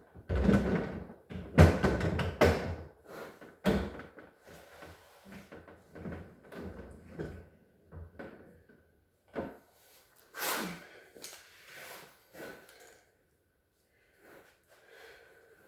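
Refrigerator parts being handled during a freezer evaporator and drain repair: a run of knocks, clunks and rattles, heaviest in the first three seconds, then scattered knocks, with one short scraping rasp about ten and a half seconds in.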